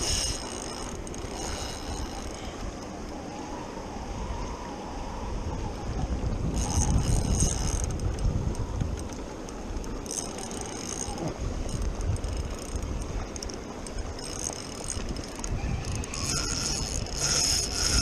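Spinning reel being wound against a hooked fish on a bent rod, its gears turning in spells, over a steady rumble of wind on the microphone and rushing river water.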